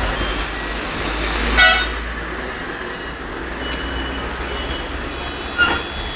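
A vehicle horn gives two short toots about four seconds apart over steady road traffic noise.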